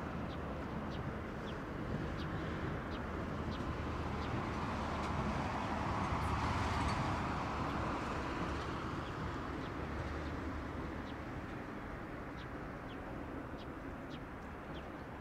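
Road traffic: a steady low rumble that swells as a vehicle passes about halfway through, then fades again. Short high ticks or chirps sound every second or so throughout.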